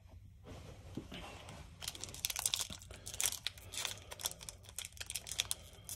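Foil wrapper of an Upper Deck hockey card hobby pack crinkling and crackling as hands pull at it, trying to tear it open. The pack is stubborn. It is fairly quiet at first, then irregular crinkles from about two seconds in.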